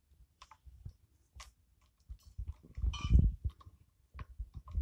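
Ice cubes clinking into a steel vessel of milkshake and a steel spoon stirring and tapping against the vessel. Scattered light clicks, with a louder clatter and a thump about three seconds in.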